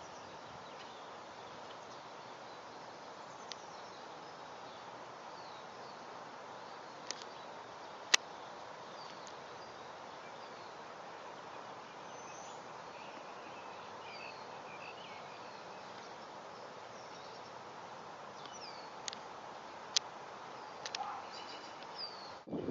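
Steady outdoor background noise with faint, scattered high bird chirps throughout. A few sharp clicks cut across it, the loudest about 8 seconds and 20 seconds in.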